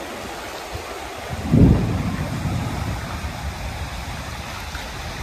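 Ocean surf and wind at a beach: a steady wash of noise. About a second and a half in comes a sudden low rumble, the loudest moment, which fades over a second or so.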